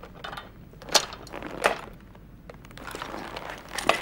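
Sword bayonet being fixed onto a rifle's muzzle: metal clicks and scraping with rustling of equipment. There are two sharp clicks about a second in and another near the end.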